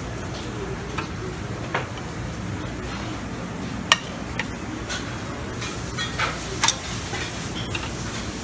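Metal serving tongs clinking now and then against stainless-steel buffet pans, several short sharp clinks, over a steady background hiss and hum.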